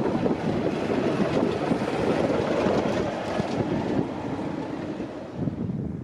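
Class 33 diesel locomotive's Sulzer eight-cylinder engine running loudly as the locomotive passes close by, the engine noise easing after about four seconds as it moves away.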